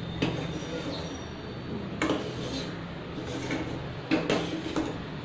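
A metal spoon stirring and knocking against a stainless steel saucepan of boiling water, with several clinks, loudest about two seconds in and around four seconds. A steady hiss of the boil runs underneath. The water is boiling to draw the last ghee residue out of the pot.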